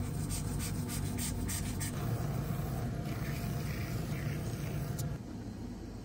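Cobbler's finishing machine running, its abrasive sanding wheels spinning as a shoe sole is pressed against them, giving rasping scrapes over the steady motor hum. About five seconds in the scraping stops and a quieter hum remains.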